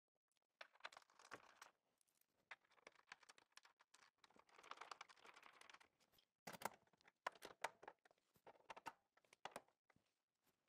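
Faint, irregular clicks and rustles of metal bolts and washers being handled and threaded by hand into the threaded plastic bottom of a water tank.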